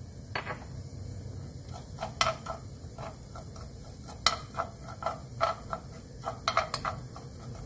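A wooden spoon stirring minced garlic in oil in a nonstick wok, tapping and scraping the pan in a string of light, irregular knocks, the loudest about four seconds in, over a low steady hum.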